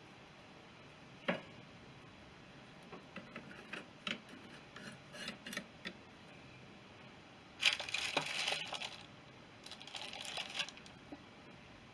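Small metal parts clicking and clinking as a motorcycle clutch and primary drive are put back together by hand, with a sharper click about a second in and two longer noisy bursts about eight and ten seconds in.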